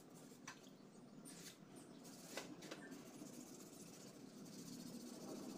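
Faint hand sanding of a plastic car bumper with 400-grit sandpaper, a soft rubbing with a few short scrapes in the first few seconds, levelling the scuffed plastic so no filler is needed.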